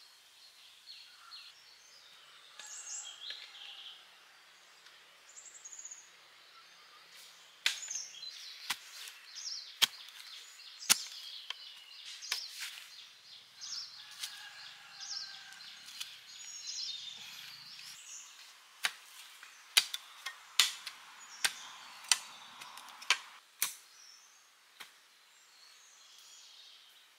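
Small birds chirping outdoors, with a series of sharp, irregular knocks starting about a third of the way in. The knocks are the loudest sounds and bunch together toward the end.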